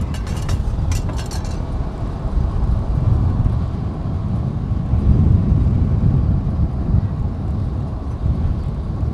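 Wind buffeting the microphone of a camera held outside a moving car, a heavy uneven rumble over the vehicle's road noise, with a few crackling clicks in the first second and a half.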